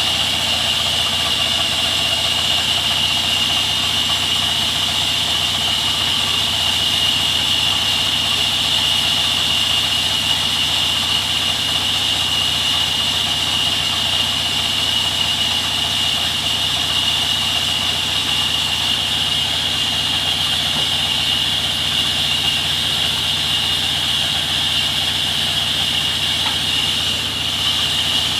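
Sawmill machinery running steadily, with a constant high-pitched whine over a lower hum.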